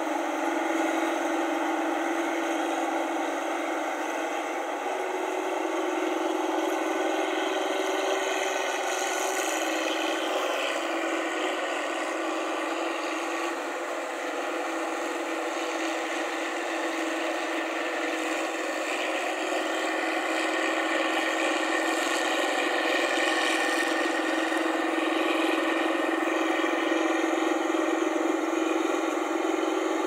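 New Holland 8060 combine harvester running steadily while harvesting rice: a continuous engine drone with the whir of its machinery.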